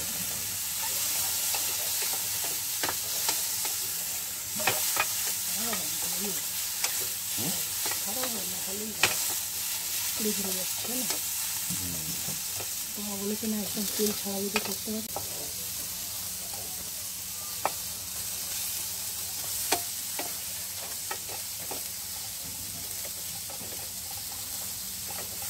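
Wooden spatula stirring and scraping potato wedges and ridge gourd pieces around a non-stick frying pan, over a steady sizzle of the vegetables dry-frying without oil. The spatula knocks sharply against the pan now and then.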